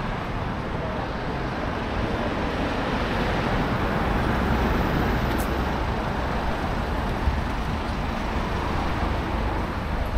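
Street traffic: a steady rumble of passing road vehicles, growing a little louder about four seconds in.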